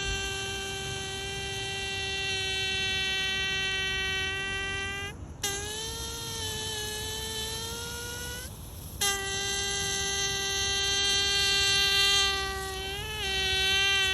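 Water hose buzzing with a steady, horn-like tone as water is forced through it. The tone cuts out about five seconds in, returns a little higher and wavering, stops briefly again, then settles back to the steady buzz and wobbles near the end.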